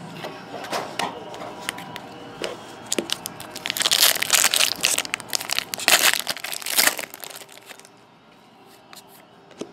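Panini Contenders hockey card pack wrapper crinkling and tearing as it is ripped open, loudest from about four to seven seconds in. Light clicks of cards being handled and shuffled around it, quieter near the end.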